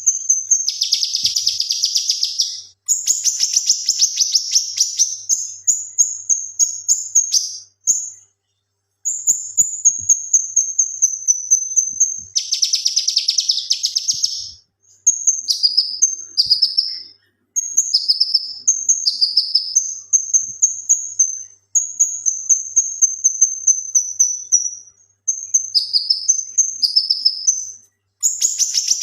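Male cucak kinoi singing loudly in fast, high-pitched chattering phrases, with harsh rattling bursts near the start and again midway. Later comes a run of short down-slurred whistled notes, broken by a few brief pauses.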